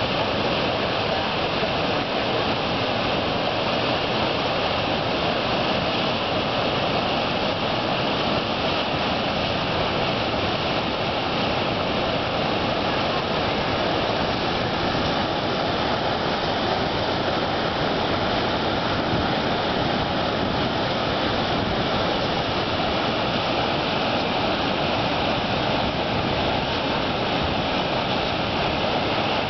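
Steady rushing of whitewater in a tidal rapid, with the current running at about 16 knots.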